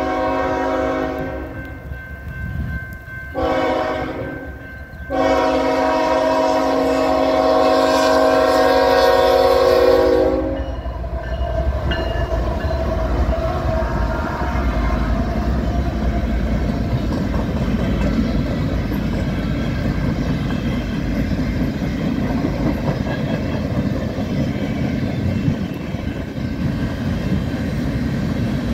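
Freight locomotive air horn sounding its crossing pattern. One blast ends about a second in, a short blast comes about three seconds in, and a long blast runs from about five to ten seconds in. After that the locomotive passes close by and loaded freight cars roll past with a steady rumble and wheel clatter.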